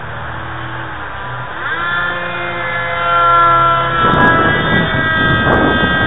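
Electric RC plane's Turnigy 2632 1500kv brushless outrunner motor and propeller whining in flight. The pitch rises as the throttle opens just before two seconds in, then holds high and steady. A rush of wind on the microphone joins about four seconds in.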